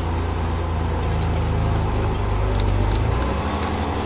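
Diesel engine of a Western Star 6900 dump truck pulling hard up a steep 25% grade, heard from inside the cab as a steady low drone. Its note changes about three seconds in.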